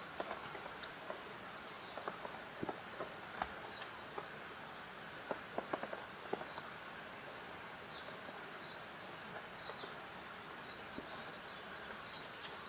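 Small birds giving short, high, falling chirps now and then, mostly in the second half, over a steady hiss with scattered light ticks.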